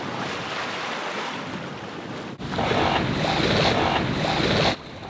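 Wind and sea water rushing past a sailboat under sail, with wind buffeting the microphone. About two and a half seconds in the sound jumps to a louder, rumbling stretch of wind on the microphone, which eases off just before the end.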